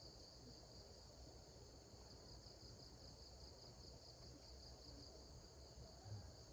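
Faint, steady high-pitched insect chirring, a rapidly pulsing trill typical of crickets, against a quiet rural background, with a soft low thump near the end.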